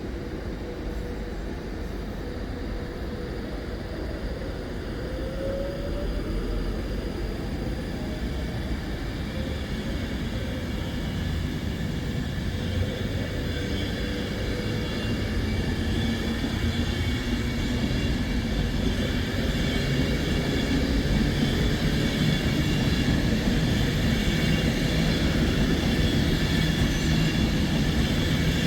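Train running on the line, a continuous low rumble with a faint steady high whine, growing slowly louder as it draws nearer.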